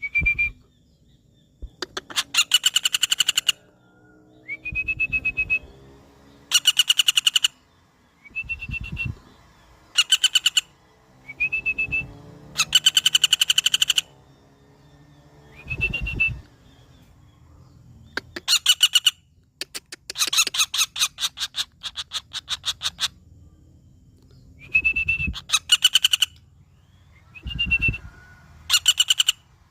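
A woodpecker (pelatuk bawang) giving loud, fast rattling calls: over a dozen separate bursts of rapidly repeated sharp notes, each lasting a second or two, many opening with a short rising whistle.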